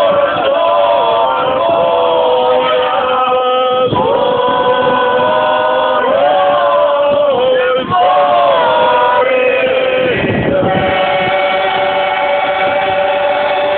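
A group singing a traditional Bosnian izvorna folk song, the voices holding long notes together.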